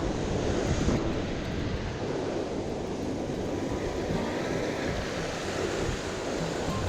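Ocean surf washing steadily against a rock shoreline, with wind noise on the microphone.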